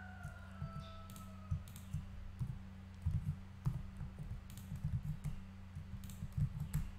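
Computer keyboard keys and mouse buttons clicking in irregular bursts as shortcuts are pressed, over a steady low hum.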